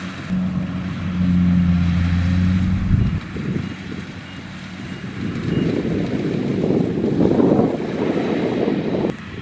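Kubota DC-70X combine harvester's diesel engine running steadily for about three seconds, then giving way to a louder, rougher rumble that cuts off suddenly near the end.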